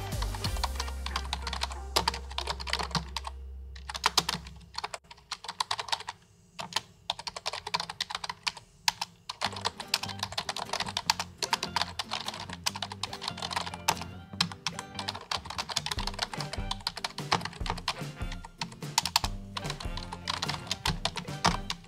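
Computer keyboard typing: quick, irregular keystroke clicks in runs, thinning out to a few scattered keys for a few seconds around the middle. Background music with a bass line plays underneath.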